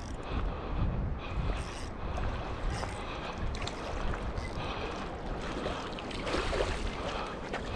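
Wind buffeting the microphone over a steady rush of water, with a few faint ticks.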